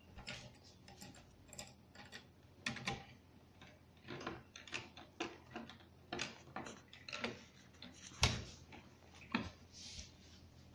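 Irregular small clicks and ticks from the mounting hardware of a CPU cooler being fitted and screwed down with a hand tool, with one louder knock about eight seconds in.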